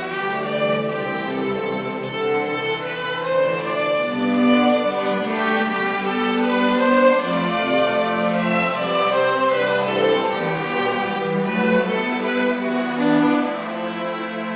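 Music played on bowed strings, violin and cello, in held notes that change about once a second.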